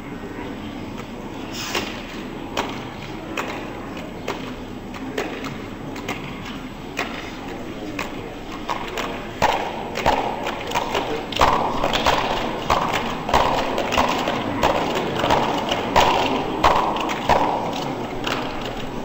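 A run of sharp knocks and thumps over hall noise. They grow louder and more frequent about halfway through, settling into roughly one and a half a second near the end.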